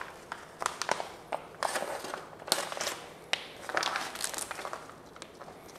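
Plastic steak packaging crinkling and rustling in irregular bursts as it is cut open and pulled apart by hand.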